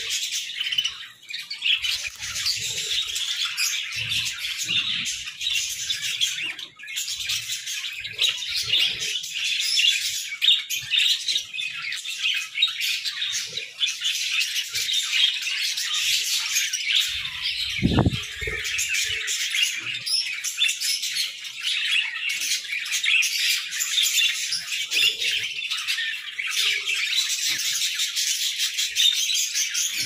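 Many budgerigars chirping and singing at once in a dense, unbroken chorus. A single low thump comes about two-thirds of the way through.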